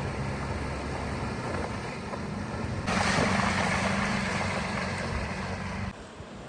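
Off-road vehicle engine running on a rough trail. About halfway through the noise jumps sharply louder and rougher for about three seconds, then cuts off suddenly.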